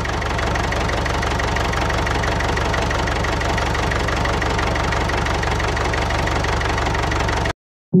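Tractor engine idling with a fast, steady knock, laid over the toy scene as a sound effect. It cuts off suddenly near the end.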